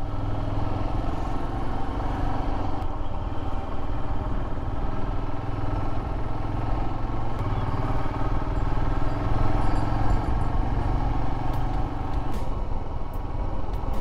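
Royal Enfield Himalayan motorcycle's single-cylinder engine running steadily while being ridden, with road noise.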